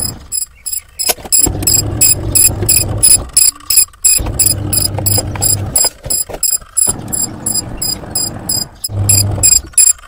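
Washing machine's electronic buzzer beeping rapidly, about four short high beeps a second. Under it, a low hum and rattle start and stop in stretches of a second or two.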